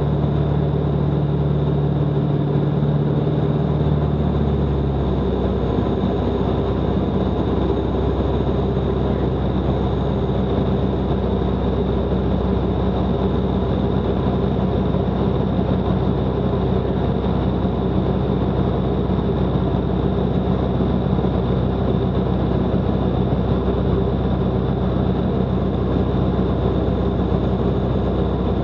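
The piston engine and propeller of a Van's RV light aircraft running steadily in cruise, heard from inside its cockpit. The engine note changes about five seconds in, then runs steadily again.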